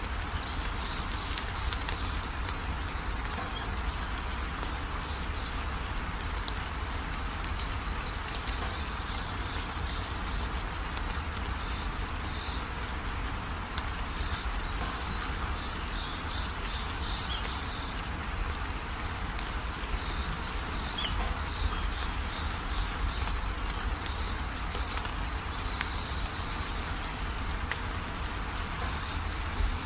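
Small birds chirping in clusters every few seconds over a steady hiss and low rumble, like a nature-ambience track of birdsong.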